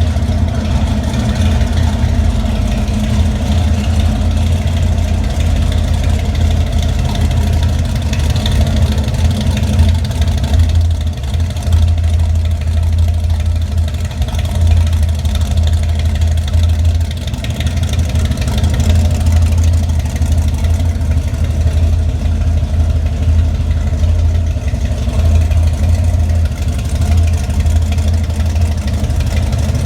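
Chevrolet 454 big-block V8 idling loud and rough through a Black Widow exhaust, its lumpy, uneven idle typical of the Lunati Voodoo performance camshaft.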